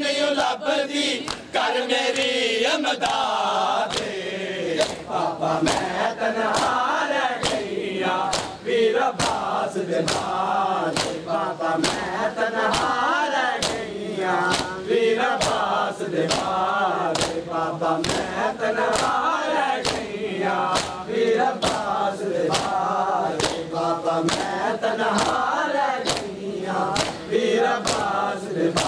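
A group of men chanting a Muharram noha lament in unison while beating their chests (matam). The open-handed slaps on their chests land in a steady, regular beat under the singing.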